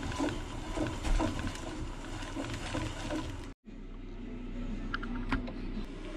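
Plastic wire spools turning and rattling on a rod as 18-gauge wire is pulled off them, with a few light clicks near the end.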